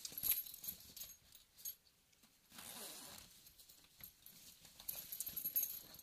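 Nylon messenger bag being handled and turned over: fabric rustling and shuffling, with light metallic clinks from its buckles and D-ring.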